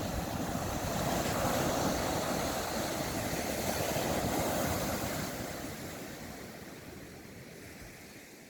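Sea waves washing onto a beach, a steady rush that swells over the first few seconds and then fades gradually toward the end.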